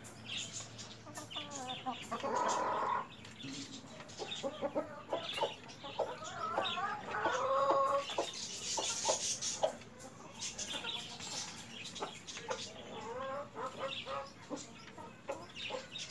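Desi chickens, hens and roosters, clucking and calling in short bouts while feeding, with scattered short clicks between the calls.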